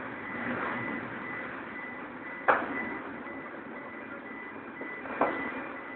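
A steady high electronic warning tone over the running noise of HMS Express, an Archer-class patrol boat, moving slowly through a tight marina lock. Two sharp knocks come about two and a half and five seconds in.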